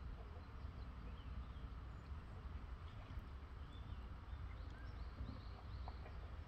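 Faint outdoor ambience: small birds chirping in short high notes, most of them in the second half, over a steady low rumble.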